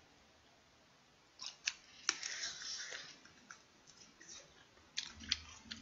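Close-up mouth sounds of chewing a salt-grilled king prawn: sparse crisp clicks and crunches, about a second and a half in and again near the end, with quiet between.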